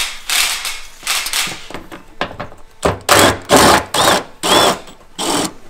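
Cordless drill-driver with a socket running in a string of short trigger bursts, spinning out the 10 mm bolts that hold a plastic fender-liner piece.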